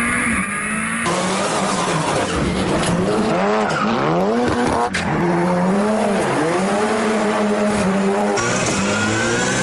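Ford Fiesta rally car engine revving hard and rapidly up and down, with tyres squealing and skidding as the car drifts. The sound changes abruptly about a second in and again near the end.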